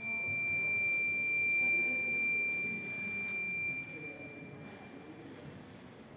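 A steady high-pitched electronic-sounding tone, held for about four seconds and then fading away, over a faint low murmur of the room.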